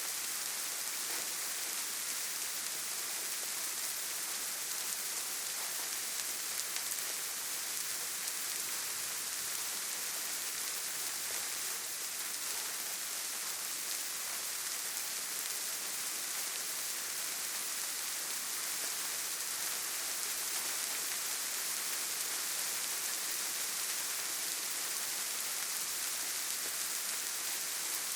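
Steady rain falling: an even, unbroken hiss, strongest in the high range and thin in the low, with no single drops standing out.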